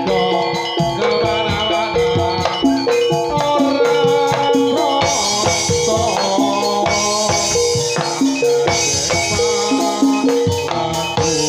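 Javanese jathilan dance music played live: ringing metal percussion plays a repeating melody over busy drumming, with cymbals coming in about five seconds in.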